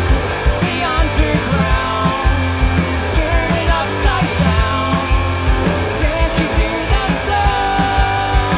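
Punk rock band playing live: electric guitars, bass guitar and a fast, even drum beat, with two singers singing into microphones.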